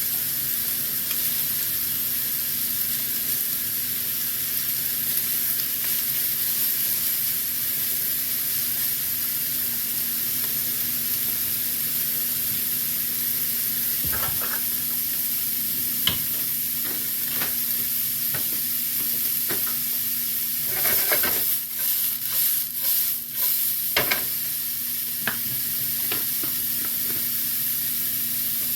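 Bacon and steak sizzling steadily in a frying pan. From about halfway a utensil clicks against the pan now and then, and about three-quarters of the way in there is a short run of louder stirring and scraping.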